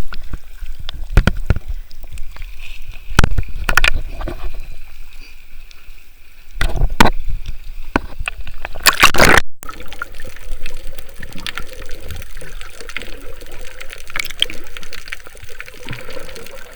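Sea water sloshing and splashing in irregular surges.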